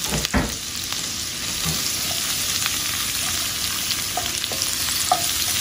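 Chopped broccoli, onions and bell peppers sizzling steadily in hot vegetable oil in a cast-iron pot while a wooden spoon stirs them. A couple of knocks come just after the start.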